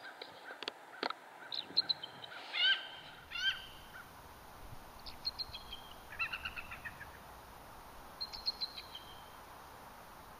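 Bald eagles calling: four bursts of quick, high chittering notes that step down in pitch, a second or two apart.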